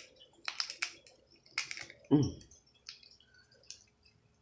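Close-up wet mouth sounds of someone chewing food: a scattering of sharp smacks and clicks, with a short hummed "mm" about two seconds in.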